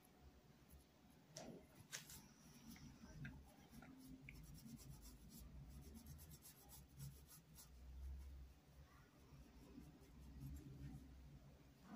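Faint scratchy rubbing of a paintbrush dragged over fabric, with a few light ticks about two seconds in and again a little past the middle; otherwise near silence.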